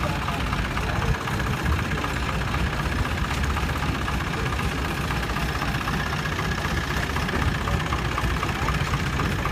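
Long-tail boat's inline automotive-type engine idling steadily, with a fast even pulse.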